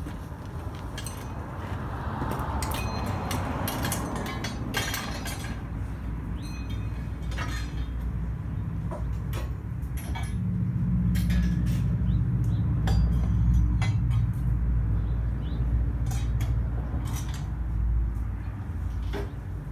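Scattered metallic clinks and knocks, like tools and parts being handled, over a low rumble that grows louder about halfway through.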